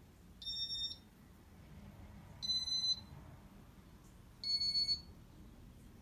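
Casablanca ceiling fan's electronic control board beeping: three short, high, pure beeps about two seconds apart, each a step higher in pitch than the one before, the fan's audible confirmation tones as settings are selected.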